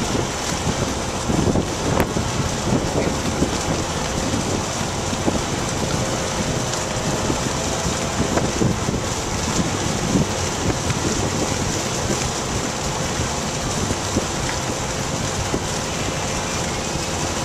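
Steady wind noise buffeting the microphone aboard a boat underway, over the low, even rush of the boat's engine and water.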